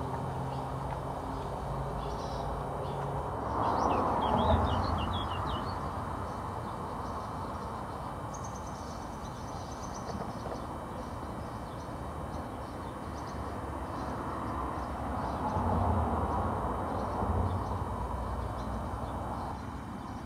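Road traffic crossing the road bridge overhead: a steady wash of vehicle noise that swells as vehicles pass, about four seconds in and again around sixteen seconds in. Birds chirp briefly about four seconds in.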